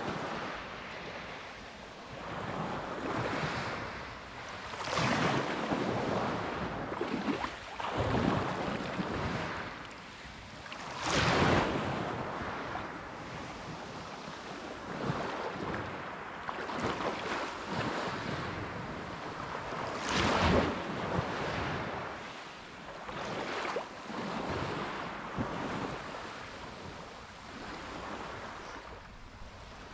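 Small waves of a calm sea lapping and washing over a pebble shore in shallow water, swelling and fading every few seconds. The strongest surges come about a third and two-thirds of the way through.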